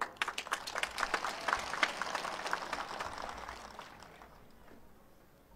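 Crowd applause: many hands clapping at once, dense at first and dying away over about four seconds.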